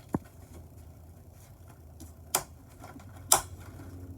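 Sharp plastic clicks and knocks from handling the small parts of a honeycomb shade's bottom rail: a light tick near the start, then two hard clicks about a second apart near the end.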